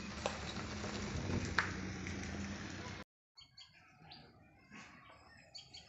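Outdoor background noise with a low steady hum and a few sharp clicks stops abruptly about three seconds in. After a brief silence, small birds chirp faintly against quiet rural ambience.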